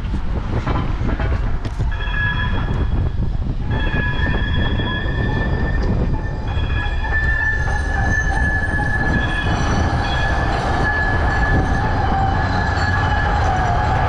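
Train wheels squealing on the rails: several long, steady high-pitched tones set in about two seconds in and carry on, over a steady low rumble.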